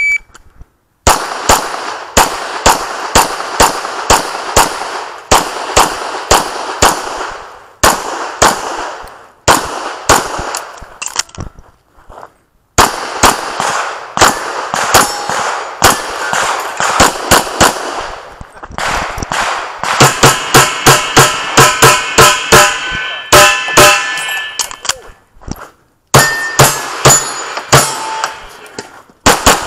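Handgun fired in fast strings of shots through a timed USPSA pistol stage, with short pauses between strings; the quickest run of shots comes about twenty seconds in. It opens on the shot timer's start beep.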